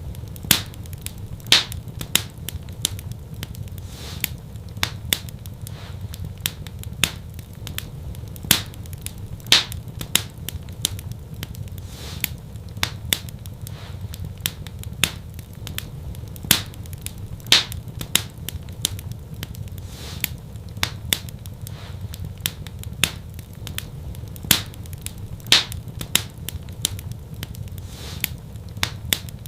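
Wood fire crackling, with sharp irregular pops and snaps several times a second over a low, steady rumble of flame.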